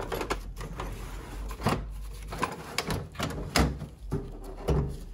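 Metal hand tools clinking and knocking in a steel toolbox drawer as they are moved about, then the drawer sliding shut in the last second or two, with a few sharp knocks.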